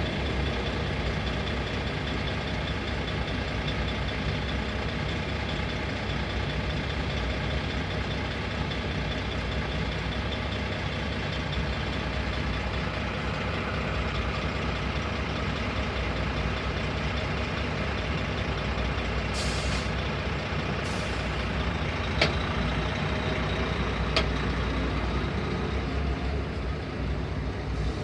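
Heavy truck engines idling and rumbling in a stopped traffic queue, a steady low drone throughout. Two brief sharp sounds, about two seconds apart, come in the latter part.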